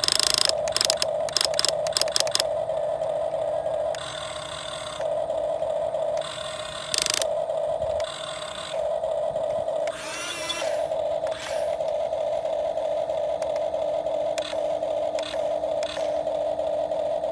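RC model excavator's small electric motor and gearing running with a steady whine, with bursts of clicking and rattling from its gears, several at the start and again near the end.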